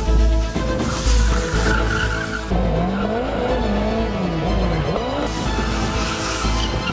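Motorcycle engine revving up and down while its tyres squeal and skid through a drift, over backing music with a steady beat. The engine pitch rises and falls several times in the middle of the stretch.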